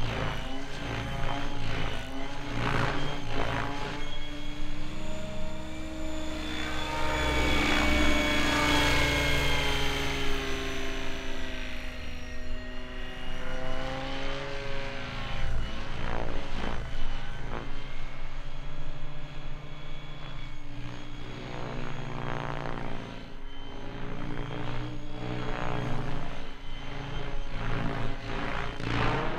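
SAB Goblin Kraken electric RC helicopter flying aerobatics overhead: the whine of its motor and rotor rises and falls in pitch as it swoops around.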